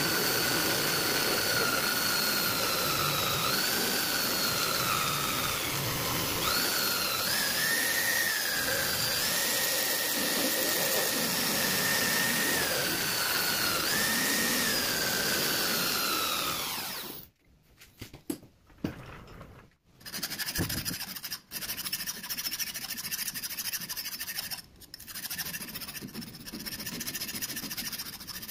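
A small end mill spinning in a metal lathe, cutting a slot in a steel air-rifle tube: a loud steady whine whose pitch dips and rises as the cutting load changes, stopping suddenly about two-thirds of the way in. After a short pause, a hand file scrapes along the slot in uneven strokes with a few light clicks.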